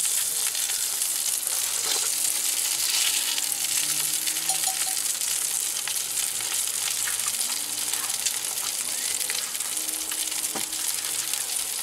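Fluke (summer flounder) fillet frying in butter in a cast-iron skillet: a steady sizzle with scattered crackles as the skin crisps.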